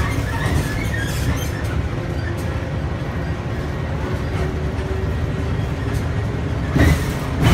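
Inside the cabin of a GAGC GZ6111SN city bus on the move: a steady low engine and road drone with light rattles from the bodywork, and one sharp thump near the end.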